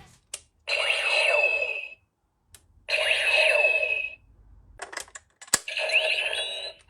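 DX Kamen Rider Nadeshiko Driver toy belt: plastic switch clicks, each followed by a short electronic sound effect from the belt's small speaker, three in a row.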